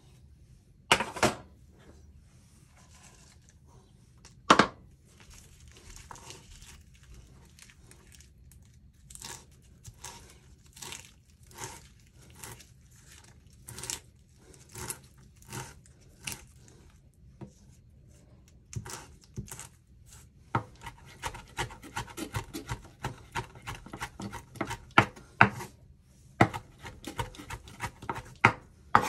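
Irregular kitchen handling noises: sharp taps, knocks and rustles of ingredients and utensils being handled, with two louder knocks early on and a quicker run of small clicks later.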